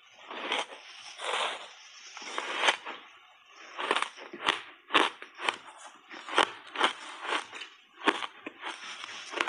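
Crunching ice: a matcha-powder-coated block of refrozen ice bitten and chewed. Softer, duller crunches in the first few seconds give way from about four seconds in to sharp cracks, two or three a second.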